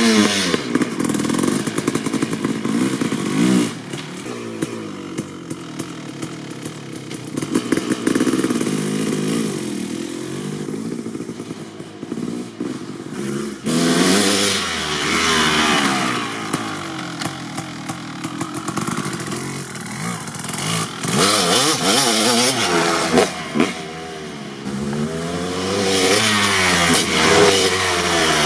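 2003 Kawasaki KX250 two-stroke dirt bike engine with an FMF Gnarly expansion-chamber pipe, ridden hard: it revs up and falls back again and again, the pitch climbing through each acceleration and dropping off between them.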